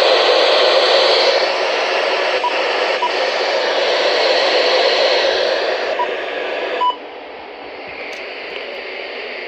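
Radio receiver static: a loud, steady hiss with no voice on the channel, which drops suddenly to a quieter, duller hiss about seven seconds in.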